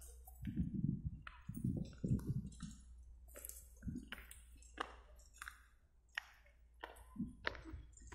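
Footsteps on a dry dirt path in a pine forest, short crunches coming about two a second, with a few low thuds in the first couple of seconds.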